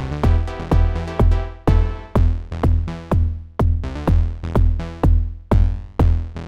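Electronic loop playing back: a kick drum synthesized in Ableton's Drift synth, driven for warmth, hitting on every beat at about two a second, each hit a little different in level, over a sustained synth bass and chords.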